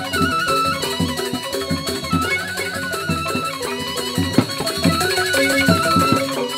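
Balinese joged bumbung music from a bamboo gamelan ensemble, playing a fast, busy melody over rapid struck notes.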